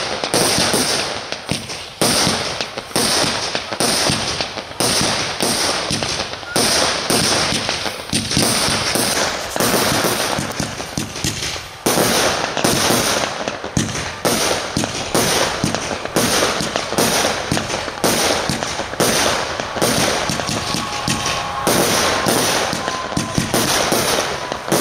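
Aerial fireworks firing and bursting in quick succession: a steady string of sharp bangs, about one or two a second, with crackle and hiss between them.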